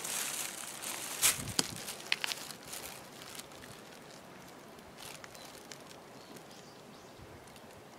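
Small metal collar bells jingling and clicking in short bursts as a cat shifts and turns its head, with light scuffing, over the first few seconds; then only faint outdoor background.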